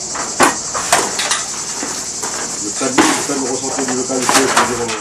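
Steady high-pitched chirring of insects, with several sharp knocks on timber-frame work: two or three early on, one about three seconds in and one a little after four seconds. Voices are heard under it.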